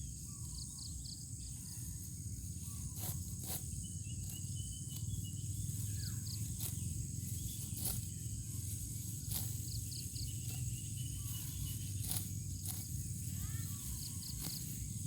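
Outdoor field ambience: a steady high insect drone with short chirps repeating in little groups, a few brief bird calls, and a low rumble underneath. About a dozen sharp snaps or clicks come at irregular intervals.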